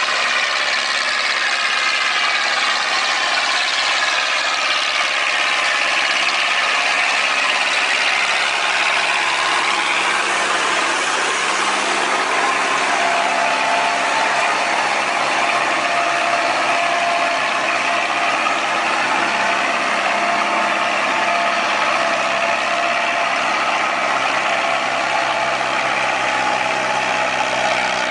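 A large machine's engine running, its pitch drifting slowly up and down in the first half and settling into a steadier whine from about halfway.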